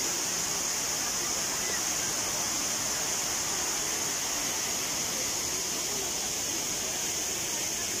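Small waterfall running: a steady, unbroken hiss of falling water.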